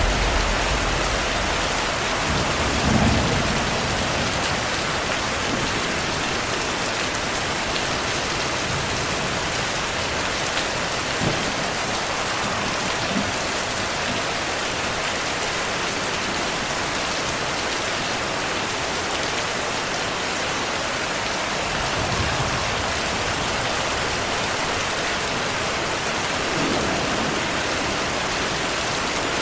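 Heavy, steady rain with thunder rumbling: a roll fading out at the start, another about three seconds in, and softer low rumbles later on.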